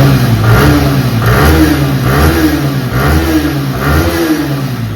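Motorcycle engine being revved over and over, its pitch rising and falling in even blips about once a second.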